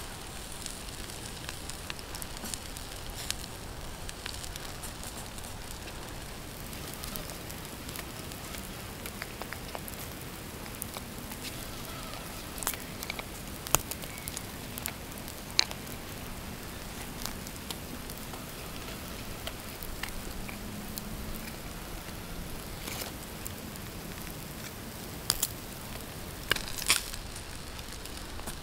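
Campfire embers crackling steadily under a wire grill grate, with scattered sharp pops and a cluster of louder clicks near the end as vegetables are laid on the grill.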